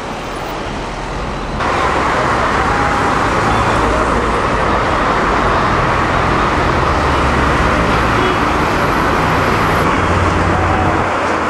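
Busy street traffic: a steady wash of engine and tyre noise, stepping up louder about a second and a half in.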